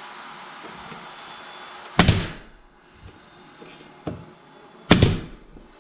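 A pneumatic nail gun fires twice, about three seconds apart, driving nails through laminate stair nosing. Each shot is a sharp bang with a short fading tail, over a steady background hiss that drops after the first shot.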